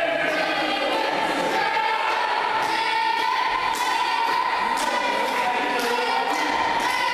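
Music with choir-like singing, one note held for several seconds over a regular beat.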